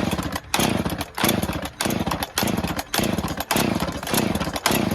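Chainsaw engine going in a run of short, loud bursts, nearly two a second, each starting sharply and fading before the next. The bursts stop just at the end.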